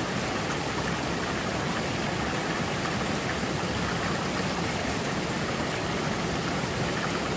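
Steady rushing of a small rocky mountain stream and its little waterfall, an even, unbroken water noise.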